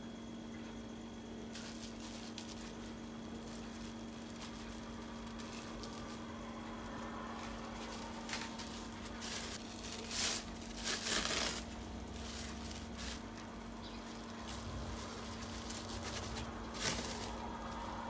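Plastic wrap crinkling in short rustles now and then, loudest a few times in the middle and once near the end, as hands press a ball of sticky rice into sweet bean paste through the wrap. A steady low hum runs underneath.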